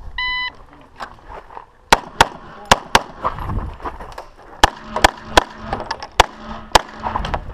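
A shot timer's short start beep, then an EAA/Tanfoglio Witness Elite Limited Pro 9mm pistol firing about ten shots, several in quick pairs, starting about two seconds in.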